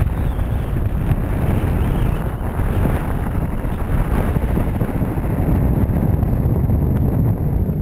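Wind buffeting the microphone of a camera mounted on a small boat, a loud low rumble, with water splashing at the hull as a hooked bluefin tuna thrashes alongside.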